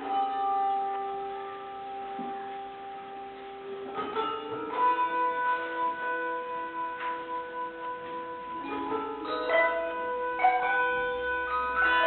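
Massed handbell choir ringing a piece together: bell chords that ring on and blend, with a chord struck at the start held for about four seconds, new chords about four and five seconds in, and quicker changes in the last few seconds.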